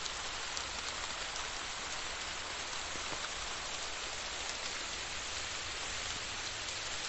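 Fine rain falling steadily on the surrounding trees and scrub, an even hiss with no breaks.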